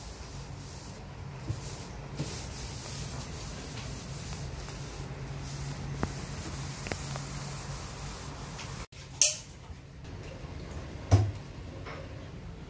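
Light rubbing and scraping of hands and loose debris under the base of a kitchen cabinet, over a steady low hum, with a few small clicks. About nine seconds in comes a sudden loud hissing scrape, the loudest sound, and a dull thump follows a couple of seconds later.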